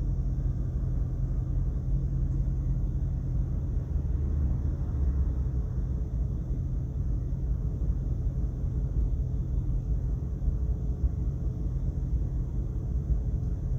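Steady low background rumble with a faint steady hum, unchanging throughout.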